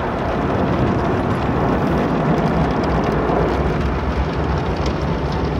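Automatic car wash machinery heard from inside the car's cabin: a steady, loud rushing noise.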